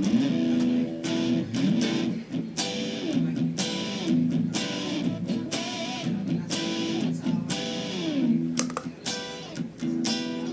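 Electric guitar played through a Boss SD-2 Dual Overdrive pedal: a run of picked notes and chords with several string bends gliding up and down in pitch.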